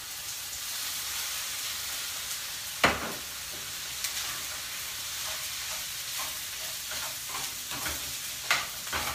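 Fried rice sizzling steadily in a frying pan on a gas stove as it is stirred with a spatula, with scrapes and knocks of the spatula against the pan; a sharp knock comes about three seconds in, and several smaller ones near the end.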